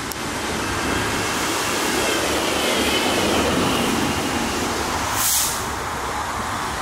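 Street traffic: the steady noise of a large vehicle passing, swelling and easing, with a short sharp hiss about five seconds in.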